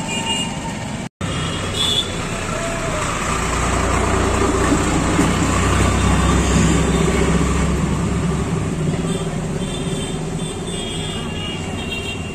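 Busy street traffic noise. A passing motor vehicle's low engine rumble swells from about three seconds in and fades by about nine, and the sound breaks off completely for an instant about a second in.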